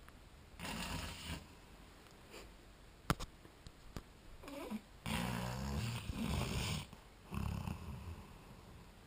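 A young black Labrador retriever snoring in her sleep: a few separate rasping snores with a low flutter, the longest, about halfway through, lasting nearly two seconds. A single sharp click sounds just after the first snore.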